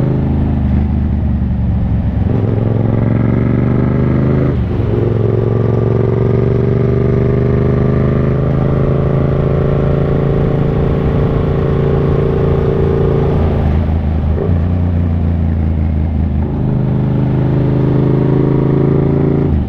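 Yamaha MT-07's 689 cc parallel-twin engine running at road speed, its pitch climbing slowly as the bike gathers speed. The tone breaks and resettles about five seconds in and again near fourteen seconds.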